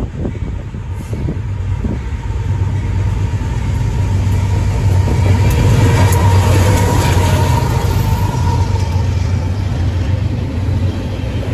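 BNSF freight train passing close by: the low drone of its diesel locomotives builds and is loudest as they go past about six seconds in, with a steady whine over it. Then the covered hopper and tank cars roll by.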